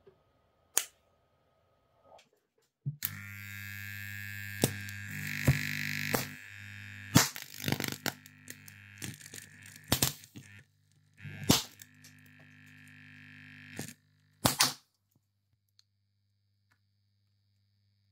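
PC motherboard overloaded with high current and burning: a loud steady hum and sizzle with half a dozen sharp pops and cracks as components burst and arc, cutting off near the end to a faint hum. Before that, a CPU cooler fan overvolted to about 21 V whines faintly and stops.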